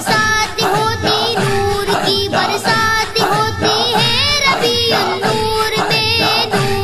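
Boys singing a naat, a devotional song to the Prophet, in a wavering, ornamented melody over a steady held drone and a regular beat.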